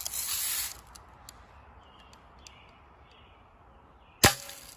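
A Daisy Red Ryder spring-air BB gun fires once about four seconds in, a single sharp crack, with the BB not getting through the soda bottle. A short hiss sounds at the start.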